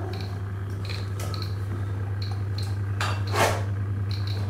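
Geiger counter clicking irregularly, about two or three clicks a second, as it is held to a cat's thyroid, which is radioactive from I-131 radioiodine treatment. A brief louder noise comes about three seconds in.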